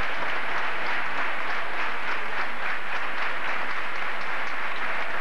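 Crowd of spectators applauding: steady, dense clapping.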